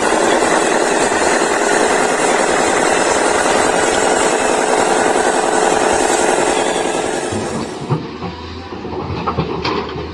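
Small electric motor and gearbox of a radio-controlled toy running with a steady whir. About eight seconds in, the sound changes abruptly to a quieter low hum with scattered clicks.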